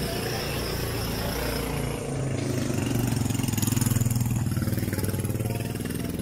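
A motor vehicle's engine running close by, growing louder to a peak about four seconds in and then easing off as it passes.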